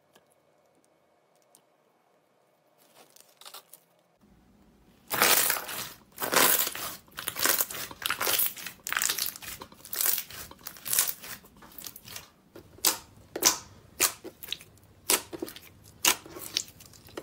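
Hands pressing and squishing slime, giving loud, sharp crackling and popping sounds in repeated bursts, each a fraction of a second long. The crackles start about five seconds in, after a near-silent opening.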